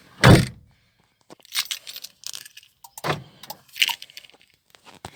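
A single heavy thump about a quarter second in, then scattered light clicks and rattles like a bunch of keys being handled.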